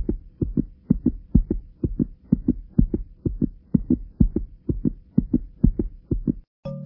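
Added background music: a steady low thumping beat, about four beats a second, over a faint held tone. It stops near the end, when a chiming mallet-like melody comes in.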